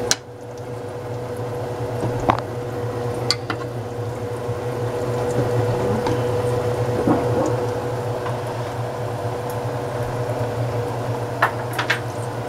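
Steady low hum with a faint simmer from a pot of chicken broth on the stove, broken by a few sharp light metallic clicks, the first as the metal tongs touch the pot.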